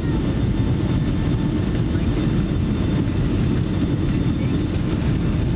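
Steady low rumble of engine and airflow noise inside an airliner cabin during descent on approach.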